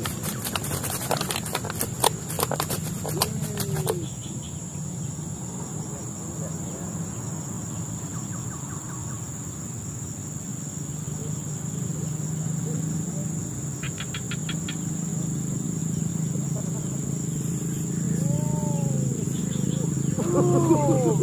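Crickets chirring: a steady high-pitched insect drone. Over it, a quick run of clicks in the first four seconds, another short train of clicks about 14 seconds in, and short calls that rise and fall in pitch near the end.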